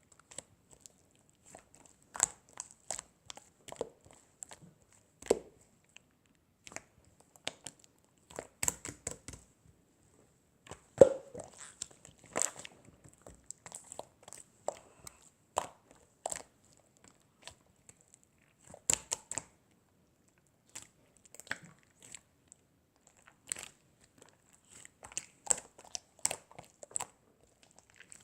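Irregular crisp crunching and crackling clicks, some single and some in quick clusters, with short quiet gaps between; the loudest comes about eleven seconds in.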